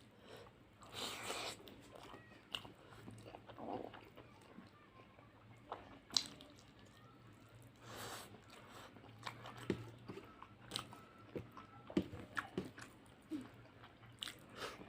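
Chewing and biting sounds of a person eating fish curry with rice: wet mouth noises and lip smacks with scattered sharp clicks and a few brief crunches.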